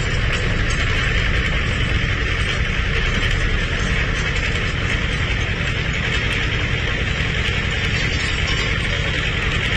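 Heavy diesel engine of a bulldozer or truck running steadily at an even speed.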